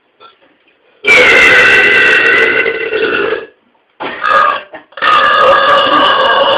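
A man belching loudly: a long belch of about two seconds that starts about a second in, a short one, then another long belch that runs on past the end.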